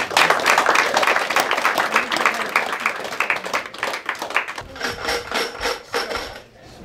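A roomful of people applauding, dying away about four and a half seconds in; after it, a quieter rhythmic sound with a steady high tone.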